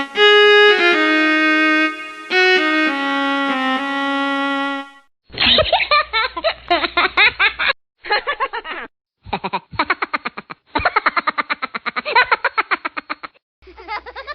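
A viola playing a short phrase of a few held notes. About five seconds in, a cartoon laughter sound effect takes over: rapid, chopped bursts of laughing broken by a few short pauses.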